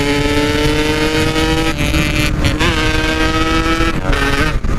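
Yamaha RX-King two-stroke single-cylinder motorcycle engine running at high revs under hard acceleration, with wind rushing underneath. Its pitch climbs slowly, drops sharply about one and a half seconds in, then holds steady and drops again near the end.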